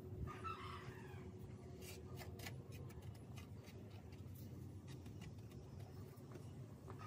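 Light ticks and scratches of fingertips pressing sawdust into cracks in a plastic motorbike body panel, clustered a couple of seconds in, over a low steady hum. A short animal call sounds in the first second.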